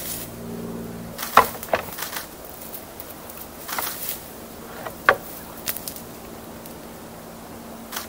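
Bull moose sparring: their antlers knock and clack together in a scatter of sharp clicks, loudest about a second and a half in and again about five seconds in.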